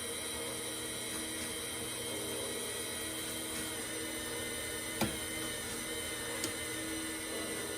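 Miniature gear motor running steadily with a whine made of several fixed tones. A sharp click about five seconds in and a fainter one about a second and a half later.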